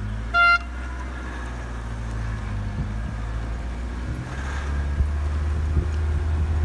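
A short, loud blast of a horn about half a second in, a single pitched toot. After it, a steady low rumble that grows louder about four seconds in.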